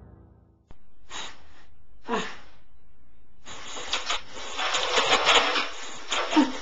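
A gagged man breathing hard and making muffled cries through a cloth gag: two short strained sounds, then a longer stretch of panting and muffled noises from about halfway, over a steady hiss. The fading end of scary music is heard at the very start.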